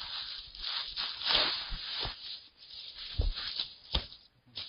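Rustling and scuffing of people moving through dry brush and over stony ground, with a few soft thumps.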